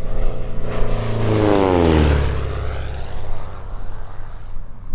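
An aircraft flying past: loud engine noise whose pitch drops as it passes, about one and a half to two seconds in, then runs on steadily.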